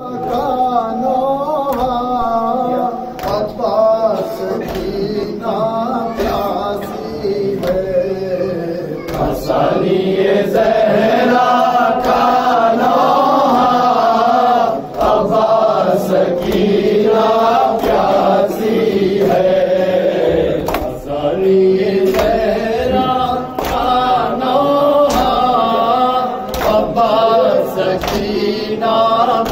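A group of men chanting an Urdu noha, a Shia mourning lament, together in unison. Hands striking chests (matam) keep a steady beat under the voices.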